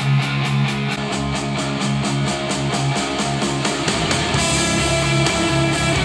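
Guitar-driven rock song playing through Creative T100 desktop speakers, recorded by microphone. About four seconds in, playback switches to JBL One Series 104 studio monitors, and the music has more treble.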